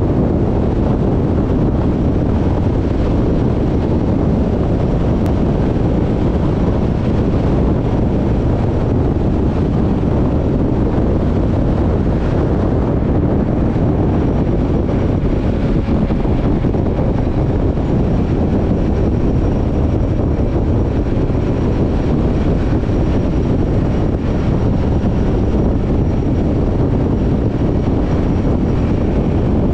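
Steady wind rush and road noise from a motorcycle riding at highway speed, the wind buffeting the microphone.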